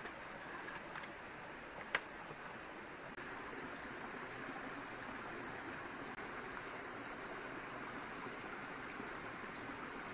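Steady rush of running water, with one sharp click about two seconds in; the rush grows a little louder about three seconds in.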